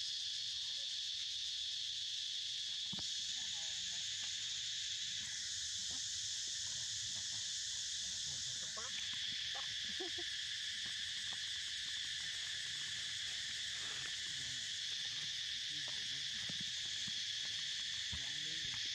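Steady high-pitched insect chorus buzzing without a break, its pitch mix shifting slightly a few times. Faint scattered clicks and rustles sit underneath.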